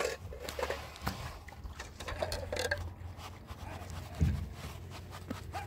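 Steel trowel scraping and smoothing wet mortar around concrete blocks, in short irregular strokes, with a louder dull thump about four seconds in.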